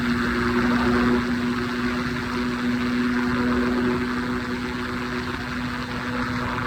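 Triumph Scrambler 400 X's 398 cc single-cylinder engine running steadily at highway cruising speed, holding one even note, under a steady rush of wind and tyre noise.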